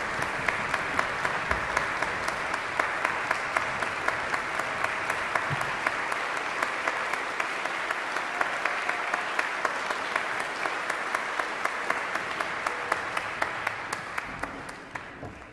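Large audience applauding in a concert hall, a dense patter of many hands clapping that dies away near the end.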